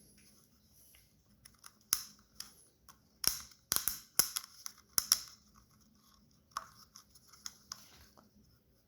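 A new oil filter cartridge and its packaging being handled by hand. It gives irregular sharp clicks and crinkles, busiest from about two to five seconds in, then a few fainter ones.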